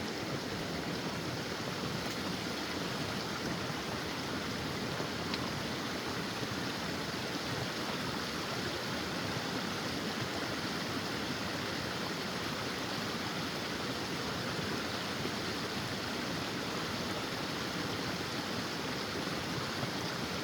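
Mountain creek rushing steadily, a constant even rush of water with no break.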